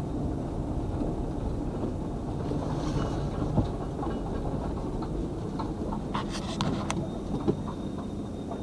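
Steady low rumble of a car's engine and tyres, heard from inside the cabin while driving, with a few faint clicks about six to seven seconds in.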